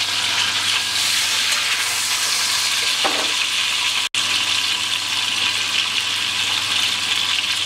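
Beef joint sizzling as it is seared (sealed) in hot fat in a cast iron pot, a steady frying hiss that cuts out for an instant about four seconds in.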